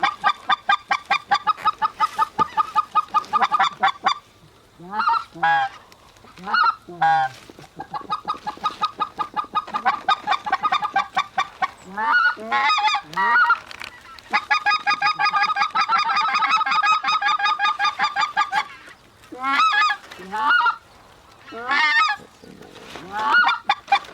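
Goose calling: long runs of fast, evenly spaced short honks and clucks, broken by a few single drawn-out honks that bend in pitch, the calling hunters use to pull in a flock that is approaching.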